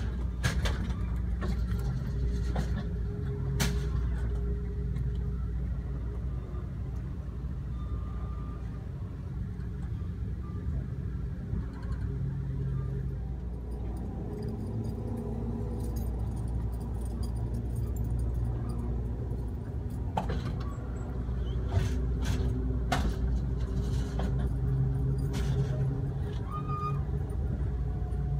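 Steady low rumble of a passenger train in motion, heard from inside the car, with scattered light clicks and rattles.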